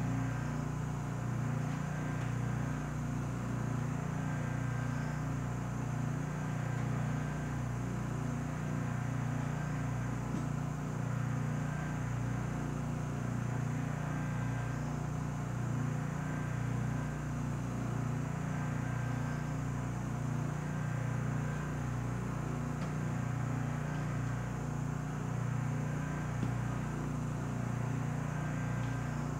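Steady low machine hum from an SST 2200 vacuum furnace holding its chamber under vacuum with the heater off, the vacuum pump and cooling equipment running without change.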